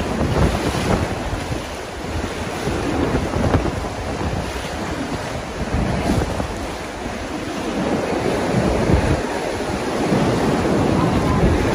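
Choppy sea water sloshing around the kayaks, with wind rumbling on the microphone.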